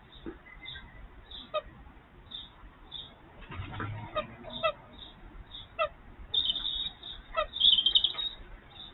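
Birds chirping and calling, short calls repeated every second or so with denser bursts of chirping a few seconds apart, and a brief low rumble about four seconds in.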